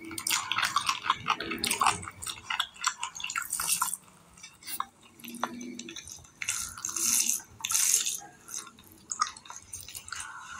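Fingers kneading rice into mutton curry gravy on a plate: a run of quick, wet, sticky squelches and clicks, busiest in the first few seconds.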